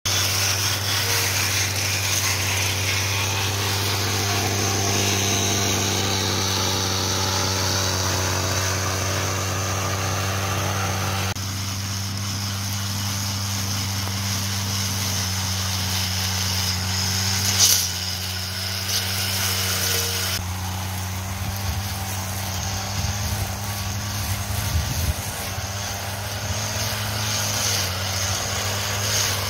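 Brush cutter engine running steadily at high speed while its spinning head mows through grass and weeds.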